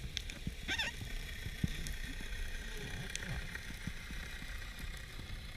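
Underwater ambience recorded through a diver's camera during a breath-hold dive: a low rumble of water movement with scattered clicks and crackles, and a brief warbling chirp about three-quarters of a second in.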